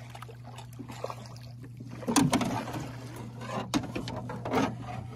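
Knocks and clatter of gear being handled in a Jon boat: several sharp knocks, the loudest about two seconds in, over a steady low hum.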